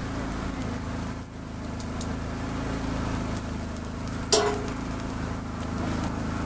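Steady low mechanical hum, with one short sharp clink just over four seconds in.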